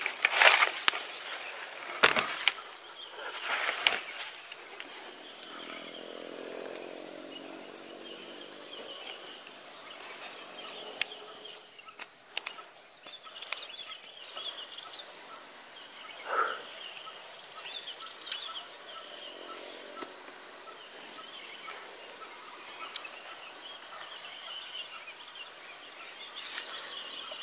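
Steady high-pitched insect drone in a rural field, with scattered bird calls. A few sharp knocks and rustles come in the first few seconds, and a louder single call comes about two-thirds of the way through.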